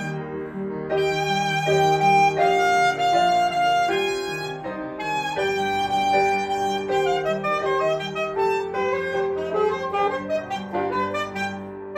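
Saxophone and piano playing together: the saxophone carries the melody, with long held notes in the first half and quicker moving notes later, over piano accompaniment.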